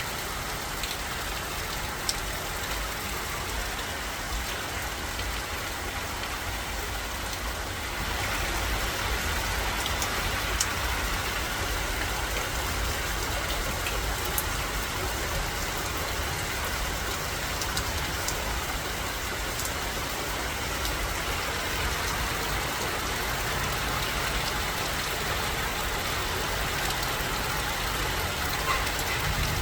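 Heavy rain coming down in a steady hiss that grows louder about eight seconds in, with a few scattered drips and a steady low rumble underneath.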